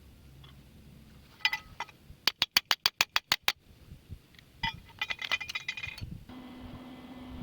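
Metal clinking and clicking while welding gear and aluminium pieces are handled: a quick, even run of about ten clicks, then more ringing clinks. A steady low hum starts near the end.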